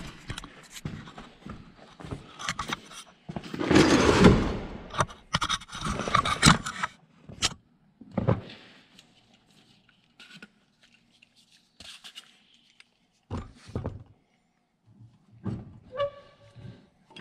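Irregular knocks, scrapes and clunks of metal parts and tools being handled at a bench vise, with loud rubbing and bumping of the camera being carried and set down in the first few seconds.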